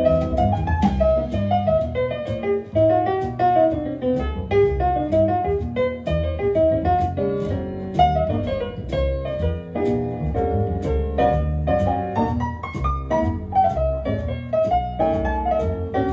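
Piano music with a bass line, played back from tape on a restored Otari MX-5050 B-II reel-to-reel deck through the room's loudspeakers.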